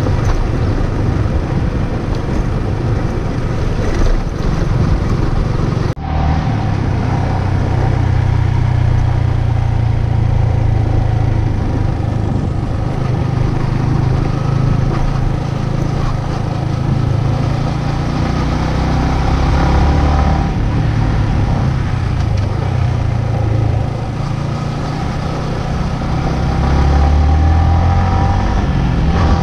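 Yamaha motorcycle engine running steadily while riding along a dirt road, with a brief dropout about six seconds in.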